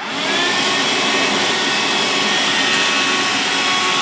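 Handheld vacuum cleaner switched on: its motor spins up within the first half second, then runs steadily with a loud whine and rush of air.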